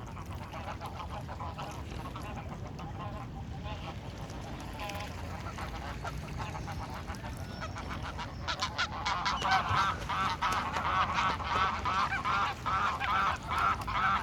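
Geese honking in a rapid run of repeated calls, soft at first, then much louder from about two-thirds of the way in.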